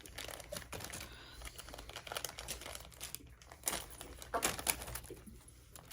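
Plastic snack wrapper crinkling in irregular bursts as it is handled.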